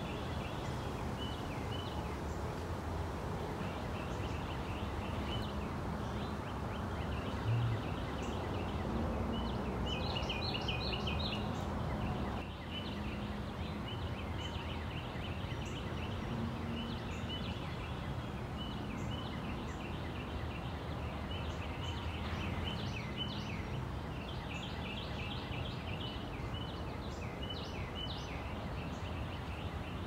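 Small songbirds chirping in the morning, many short high chirps repeating over and over, thickest about ten seconds in and again near the end, over a steady low background noise. A brief low thump about seven seconds in.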